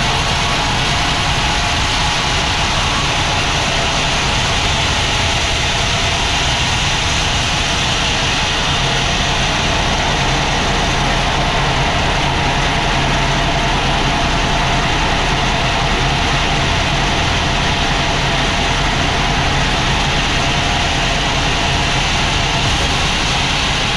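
Sawmill machinery running steadily: a continuous engine drone with a constant hiss above it, unchanging throughout.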